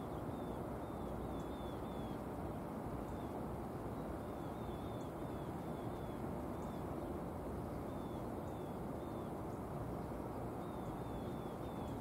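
A small bird calling in runs of short, falling chirps, repeated several times, over a steady background rumble.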